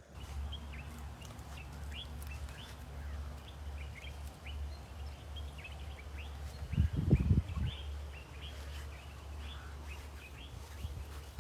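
Small birds chirping over and over in short rising notes, over a steady low rumble, with a brief loud low buffeting about seven seconds in.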